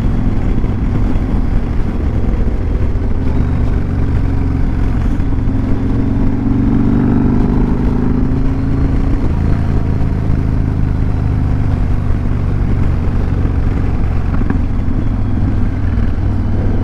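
Motorcycle engine running steadily under way on a downhill ride, its note rising and falling a little around the middle as the throttle changes, with steady wind rush over the microphone.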